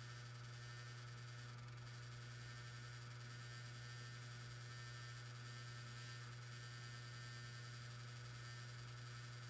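External hard disk drive running with a steady low hum over a faint hiss: an abnormal noise that its owner calls really loud.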